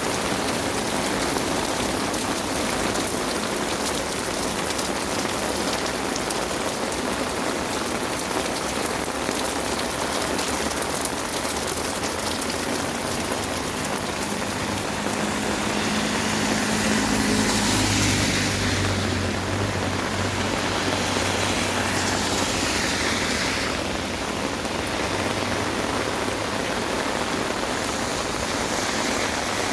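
Heavy rain falling steadily. A low droning hum swells and fades through the middle.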